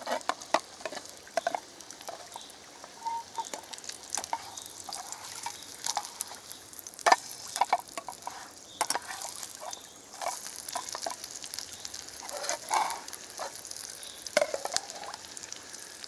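Spelt patty frying in hot oil in a small pan: a steady sizzle dotted with irregular sharp pops and crackles of spitting fat.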